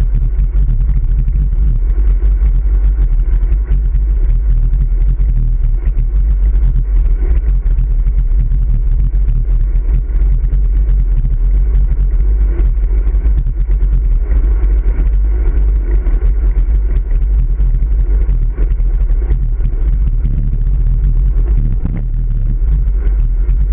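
Wind buffeting the microphone of a handlebar-mounted camera on a road bike moving at speed, mixed with tyre noise on asphalt: a loud, steady low rumble.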